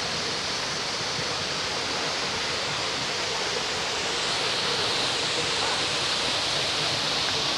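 Waterfall: a steady, dense rush of falling water, slightly louder from about four seconds in.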